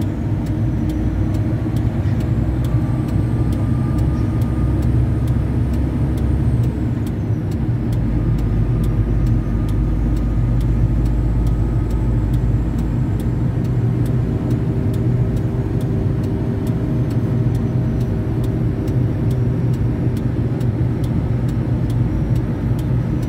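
Liebherr 1090-4 mobile crane driving at road speed, heard inside its cab: a steady diesel engine drone under road noise.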